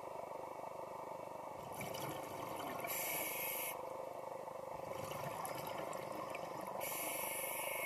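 Underwater recording: a steady hiss and rush of water noise, with two louder spells of breathing hiss about five seconds apart, a scuba diver breathing through a regulator.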